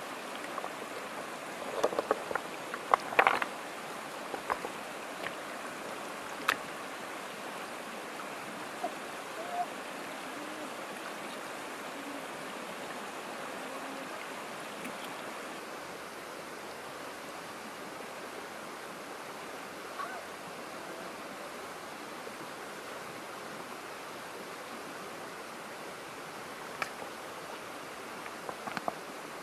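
Shallow rocky river running steadily, with a few sharp knocks of stones clacking together as rocks are lifted and set down by hand, clustered about two to three seconds in and again near the end.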